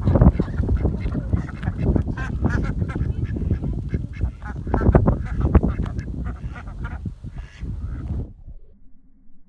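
Domestic ducks quacking repeatedly in quick succession, over a heavy low rumble, with everything stopping abruptly about eight seconds in.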